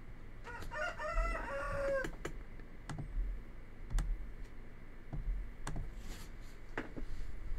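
A single pitched call, about a second and a half long, that ends on a falling note, followed by a few scattered sharp computer mouse clicks.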